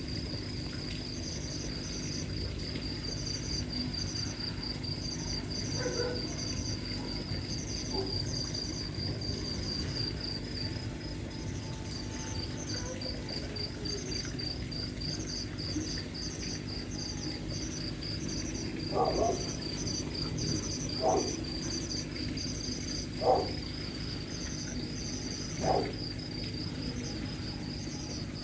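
Crickets chirping steadily. From about two-thirds of the way in, a sleeping dog snores in short regular snores about every two seconds, louder than the crickets.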